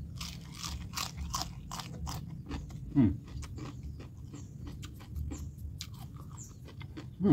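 Close-up crunchy chewing of a raw Chinese cabbage leaf, many crisp crunches in a row. About three seconds in there is a short, low, falling hum.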